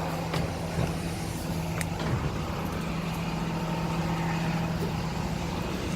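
A vehicle engine idling with a steady low hum, with a few light clicks and knocks in the first two seconds as someone climbs up onto the truck.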